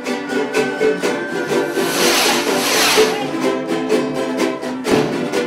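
Tamunangue music on strummed string instruments, with a quick, steady strum and a brief rush of hissing noise about two seconds in.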